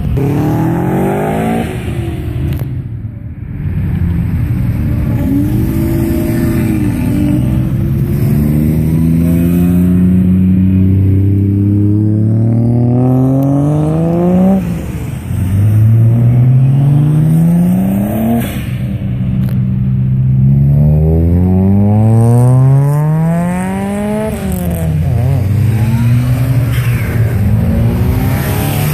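Car engines accelerating hard as they pass one after another, each rising in pitch through a gear and dropping sharply at the change, over a steady low exhaust rumble.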